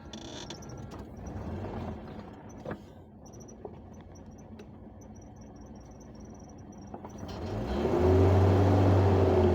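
A motor vehicle's engine: a low rumble at first, then, near the end, growing much louder as it revs, with a steady low hum and a wavering pitch.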